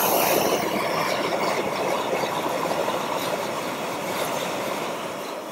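100,000 BTU high-pressure propane wok burner running at high flame with the adjustable regulator at maximum pressure: a steady rushing of burning gas.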